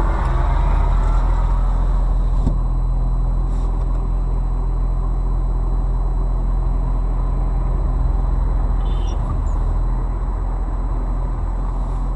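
Steady car engine and road noise heard from inside a moving car, a constant low hum with no impact. There is a faint click about two and a half seconds in.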